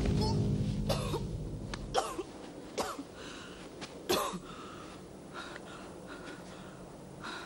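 A woman's short, strained grunts and gasps of effort as she hauls a heavy body. There are about four sharp grunts in the first half, and the last background music fades out over the first two seconds.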